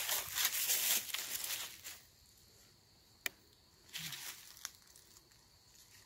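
Footsteps crunching through dry fallen leaves for about two seconds, then quiet apart from one sharp click a little past the middle and a couple of faint knocks.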